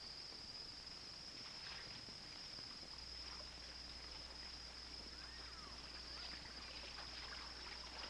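Faint steady chorus of crickets, a continuous high trill, with a few faint short chirps in the second half.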